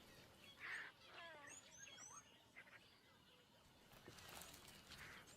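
Near silence with faint wild bird calls: a few short descending chirps and some high, thin whistles, mostly in the first half.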